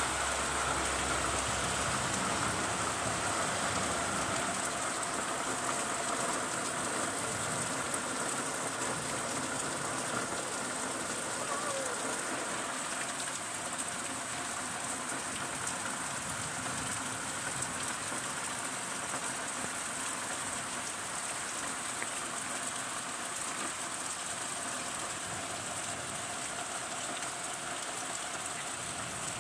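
Heavy rain falling steadily in a downpour, an even hiss of rain on the ground and surfaces that eases slightly toward the end.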